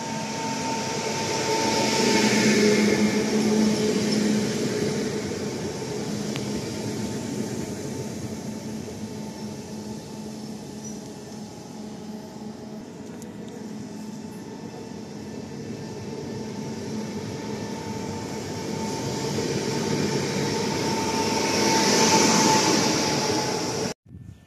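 Koleje Dolnośląskie electric multiple unit pulling out of the station and running past close by: a steady electric whine over the rumble of wheels on the rails. It is loudest a few seconds in and again near the end, then cuts off suddenly.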